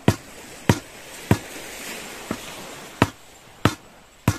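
A steady series of sharp blows from a hand tool striking something solid, about three every two seconds, with a short gap and one lighter hit near the middle.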